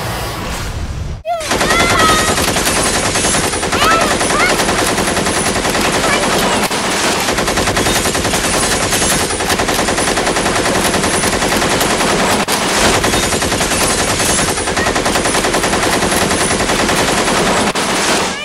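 Rapid automatic gunfire, a dubbed machine-gun sound effect, starting about a second in and going on without a break.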